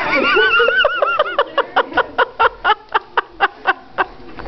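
A person making turkey-like gobbling noises: a high, warbling voice that breaks into a rapid string of short staccato pulses, about six a second.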